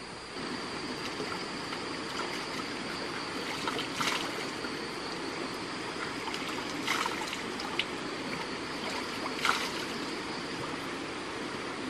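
Small forest stream running over rocks, with hands splashing and scooping the water three times, about 4, 7 and 9 seconds in.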